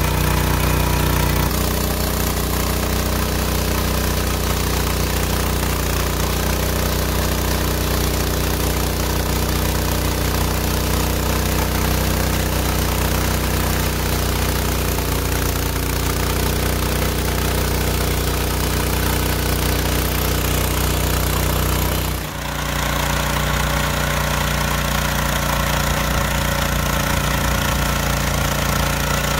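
Small gasoline engine of a Hudson Hunter band sawmill running steadily while the mill saws a log. The sound changes abruptly twice, about a second and a half in and about three quarters of the way through, with a brief dip at the second change.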